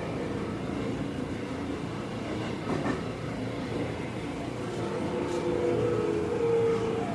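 Seibu 9000 series electric train car MoHa 9205 running on the rails, a steady rumble of wheels and running gear. About five seconds in, steady tones from its traction motor come up over the rumble; this motor is known for making an abnormal noise.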